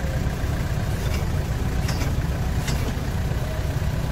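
Off-road 4x4's engine running steadily at low revs, a deep continuous rumble, with three faint clicks in the middle.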